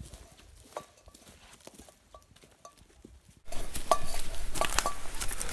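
Footsteps crunching on dry pine needles and twigs, with light metallic clinks from gear hanging on a backpack. The sound gets suddenly louder and closer about three and a half seconds in.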